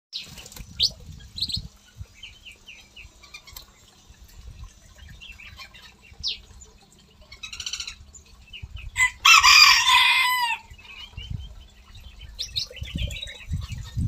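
Small songbirds in an aviary chirping and whistling in short sweeping notes. About nine seconds in comes a loud burst of rapid, falling calls lasting over a second. Occasional low rumbles lie underneath.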